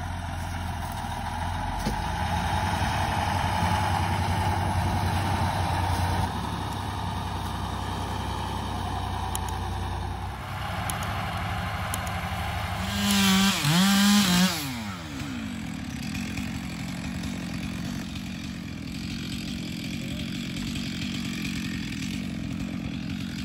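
Chainsaw engine running, with a loud stretch of revving up and down for about a second and a half about halfway through.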